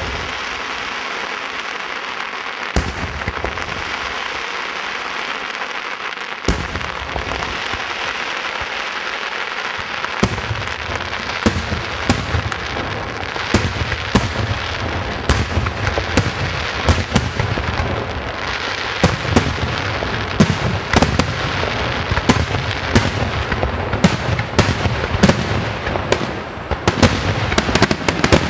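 Aerial fireworks display: a continuous dense crackling and fizzing of bursting shells, with a steady run of sharp bangs. The bangs come thicker and deeper from about ten seconds in, and thickest near the end.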